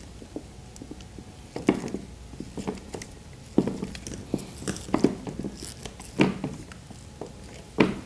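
Vacuum hose cuff being worked onto a grinder dust shroud's outlet that is wrapped with rubber bands for a very tight fit: scattered short rubbing and knocking sounds of plastic and rubber as the end is twisted and pushed on.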